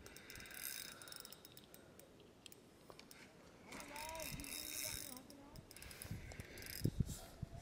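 Fishing reel being cranked in three short bursts, a fine whirring clicking of its gears, with a few low knocks near the end.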